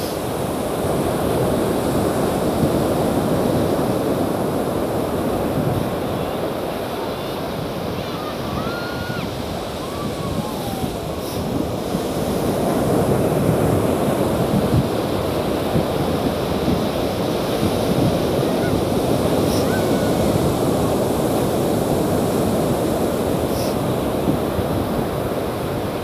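Ocean surf breaking on a sandy beach: a steady rushing wash that swells and eases as waves come in.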